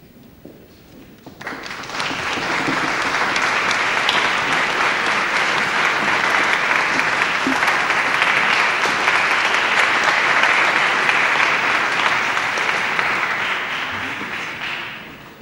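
Concert audience applauding, starting about a second and a half in, holding steady, and dying away near the end; applause greeting the performers as the soprano soloist takes her place.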